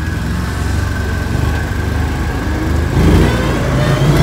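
Argo Bigfoot 6x6 amphibious ATV engine running steadily as it drives through the woods, heard from on board, with the engine note rising about three seconds in.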